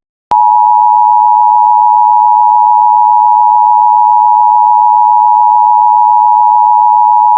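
Emergency Alert System attention signal: two steady tones of 853 and 960 Hz sounded together as one loud, unbroken tone, starting about a third of a second in. It marks a required monthly test of the alert system.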